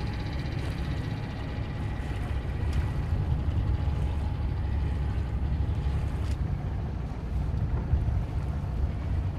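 Steady low rumble of a boat under way on the water, with wind buffeting the microphone.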